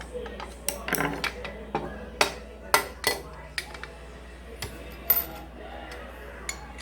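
Parts of an adjustable microwave stand being handled during assembly: irregular clinks and knocks, a few louder ones about two, three and five seconds in, over a steady low hum.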